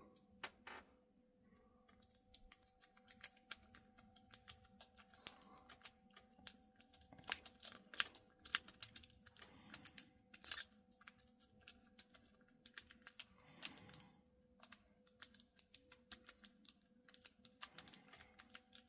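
Lock picks and a tension wrench working the pins of a Squire No.35 laminated padlock: faint, irregular small metallic clicks and ticks as the pins are raked and set, with short pauses between runs.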